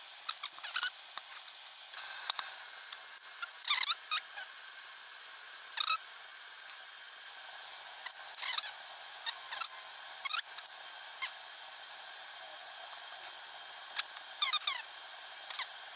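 Small metal parts and hand tools clicking and scraping while a small model engine is assembled by hand: a dozen or so sharp clicks and taps, several of them short squeaks that slide down in pitch.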